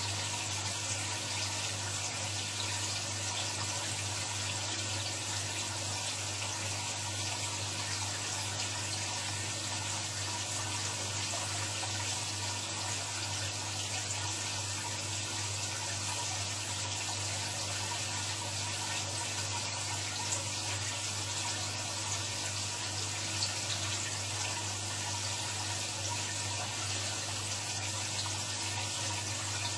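Steady, even rushing hiss like running water, with a low steady hum underneath, unchanging throughout.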